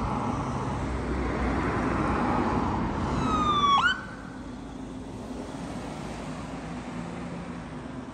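An emergency vehicle's siren gives one falling wail about three seconds in and breaks off abruptly, over steady road and engine noise. After that only a quieter traffic hum remains.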